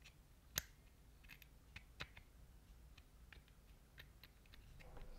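Near silence with a few faint, light clicks, the loudest about half a second in, from a soldering iron tip and a plastic clock circuit-board housing being worked by hand while solder joints are reheated.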